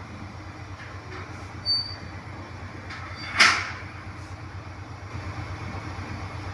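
TransPennine Express Class 397 electric multiple unit pulling away and drawing off, a steady low hum. A short high squeal comes a little under two seconds in, and a brief sharp noise about halfway through is the loudest moment.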